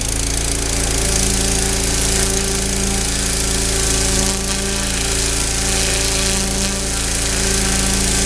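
3000 psi pressure washer running steadily, a machine hum with a loud hiss of water jetting from the turbo nozzle onto a raw deer hide.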